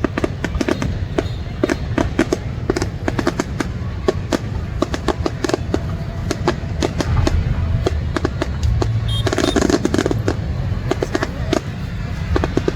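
Aerial fireworks display: a rapid, continuous string of bangs and crackling bursts over a low rumble, thickening into a dense crackle about nine seconds in.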